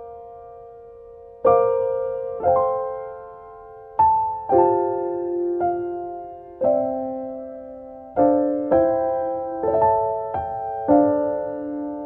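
Slow, gentle solo piano music: soft notes and chords struck about once a second, each left to ring and fade.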